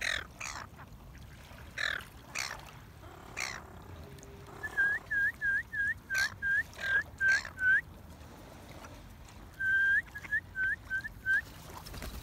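Waterbirds (black swans, silver gulls and ducks) calling: a few harsh, scratchy calls in the first seconds, then a loud run of about a dozen short, clear notes, each rising at its end, about three a second, and a shorter run of the same notes near the end.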